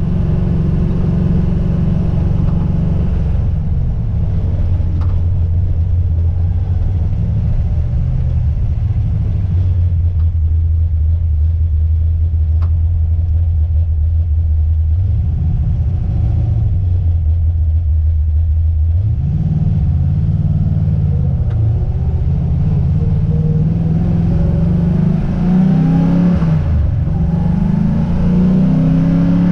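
Car engine and road noise while driving: the engine eases off and holds a steady low note, then rises in pitch through the later part as the car accelerates. One or two faint clicks can be heard during the steady stretch.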